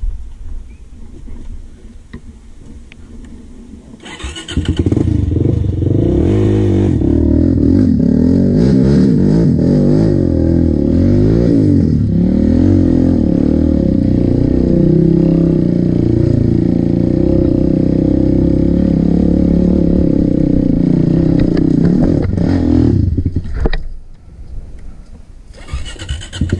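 ATV (quad) engine coming in loudly about four seconds in and revving hard and unevenly under load on a rough trail. It drops off briefly near the end, then revs up again.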